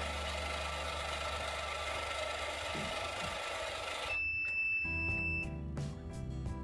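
Small DC gear motors of a tracked robot chassis whirring steadily as it drives. About four seconds in this cuts off and a steady high beep sounds for about a second, then background music begins.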